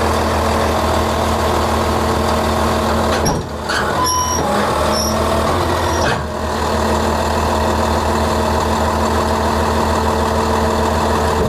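Heavy diesel machinery engine running steadily under load, with two brief dips in level and a short thin whine about four seconds in.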